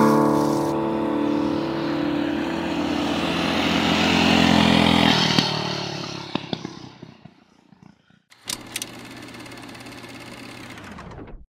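Mini bike's small engine running steadily as the rider goes by, fading away over a couple of seconds after about five seconds. A few seconds later a quieter steady hum starts with a couple of sharp clicks and cuts off suddenly near the end.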